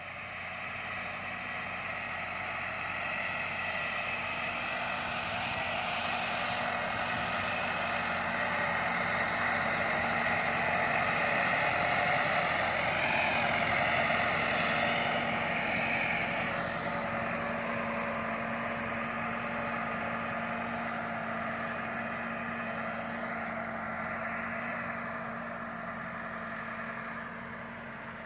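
Massey Ferguson 375 tractor's four-cylinder diesel engine running steadily under load as it pulls a land leveller over tilled soil. It grows louder as it passes close by about halfway through, then fades as it moves away.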